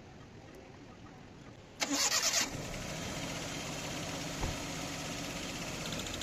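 Car petrol engine cranked by the starter for under a second, catching and settling into a steady idle, with a single brief thump about halfway through.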